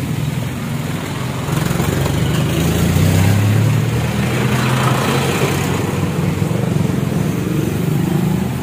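Motorcycle engine running steadily with a low hum, swelling about a second and a half in and easing back after about six seconds.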